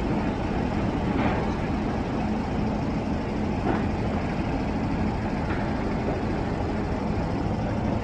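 A steady low engine drone with a constant hum and no change in level.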